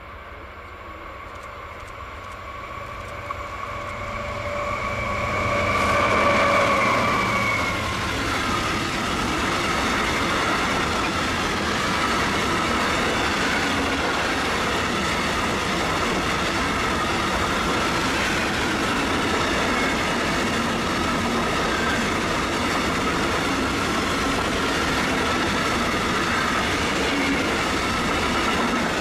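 A freight train passing close by. The locomotive approaches with a steady, rising whine and is loudest about six seconds in. A long string of wagons then rolls past with an even rumble over the rails, fading near the end.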